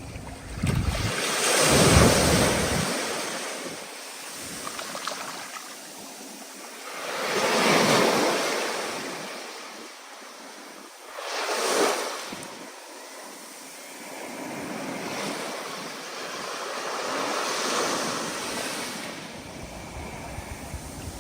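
Stormy ocean surf: waves breaking and washing in repeated surges, the loudest about two seconds in, others around eight, twelve and eighteen seconds. A low wind rumble is on the microphone at the start and near the end.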